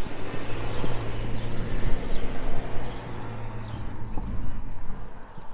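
A car driving past close by, its engine hum and tyre noise steady, then falling away about five seconds in.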